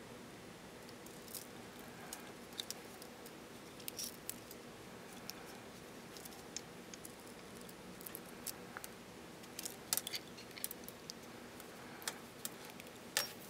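Scattered light clicks and ticks of small metal parts being handled: a brushless gimbal motor on its aluminium mounting arm, with its lead wires, turned over in the hands. A steady low hum lies underneath.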